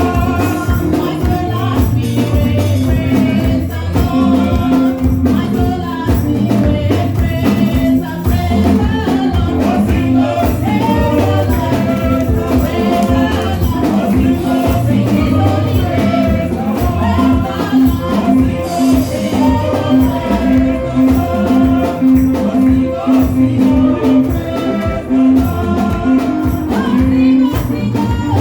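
Live church praise music: a band with a steady beat and a tambourine shaking through it.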